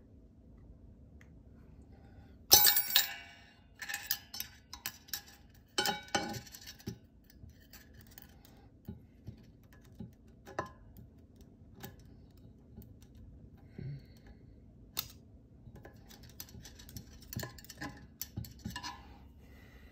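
A steel snap ring and metal clutch-drum parts of a 4L60E transmission being worked by hand, giving scattered metallic clinks and clicks. A sharp clank about two and a half seconds in is the loudest, with quick runs of clinks around four to seven seconds and again near the end.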